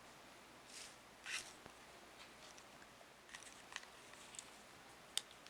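Faint rustling and a few light clicks of small fidget pen parts being handled and fitted back into their packaging, with a sharper click near the end.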